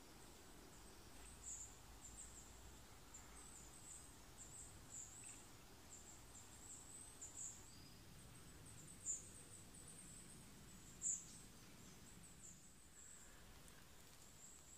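Near silence: faint woodland ambience with a run of high, thin chirps, two of them a little louder about nine and eleven seconds in.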